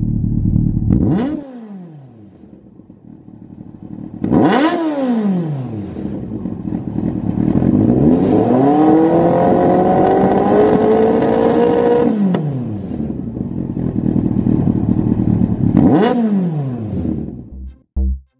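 Yamaha FZS1000's inline-four engine revved while the bike stands, heard through a Lextek GP1 aftermarket silencer. There are four throttle blips, each climbing and falling back to idle; the third is a longer rev that climbs slowly, holds for a few seconds and then drops. Electronic music starts right at the end.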